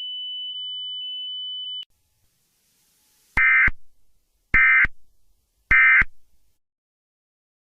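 A steady high electronic tone cuts off about two seconds in. After a brief silence come three identical short digital data bursts about a second apart: the Emergency Alert System end-of-message signal that closes an alert.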